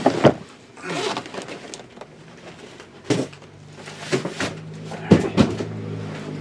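Large cardboard boxes being handled and shifted: a series of knocks and bumps with rubbing and rustling of cardboard in between. A low steady hum comes in about three seconds in.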